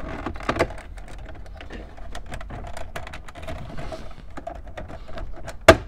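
Plastic dashboard trim on a 2008 VW Jetta being pried up with a plastic panel tool: a run of small clicks and creaks, then one loud snap near the end as a trim clip lets go.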